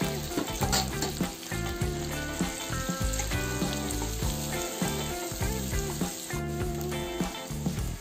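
Sliced onion, chopped garlic and green chilli sizzling in hot oil in a kadhai, stirred now and then with a wooden spatula. Background music with a melody plays over it.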